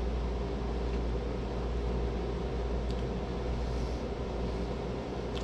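Steady low mechanical room hum, with a few faint clicks.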